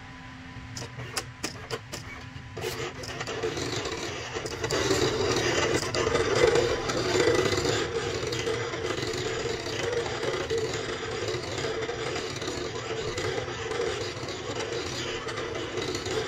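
Silhouette CAMEO 4 electronic cutting machine running, its motors whirring as the carriage and rollers move. A few sharp clicks come in the first seconds, then the whirring swells after a few seconds and holds steady.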